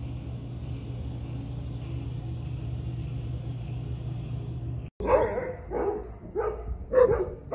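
A steady hum for about five seconds, then after a sudden cut, dogs barking: about five barks in quick succession, roughly two a second.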